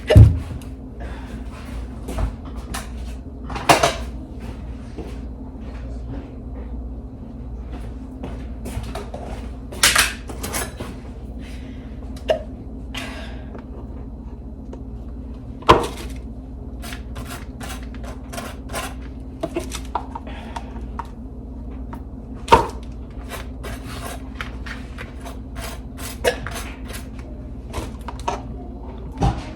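Kitchen food-prep clatter: scattered knocks and clicks of dishes, cutlery and cupboard doors, a few seconds apart, over a steady low hum.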